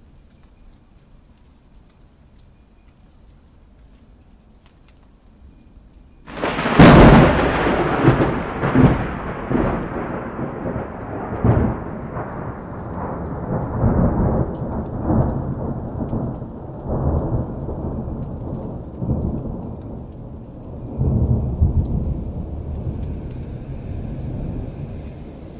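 Thunder: after a few quiet seconds of faint rain, a loud, sudden thunderclap breaks about six seconds in. It goes over into a long rolling rumble with repeated swells that slowly dies away.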